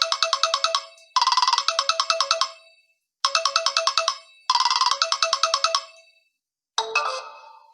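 Preset ringtones of a BQ Universe smartphone. A quick, tinkling electronic melody plays as four short repeated phrases, then after a brief pause a different chiming ringtone starts near the end.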